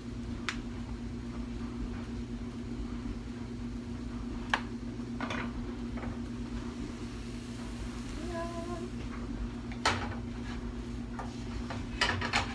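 Kitchen handling sounds: a few scattered sharp clinks and knocks of dishes or utensils, the loudest about ten seconds in and two close together near the end, over a steady low hum.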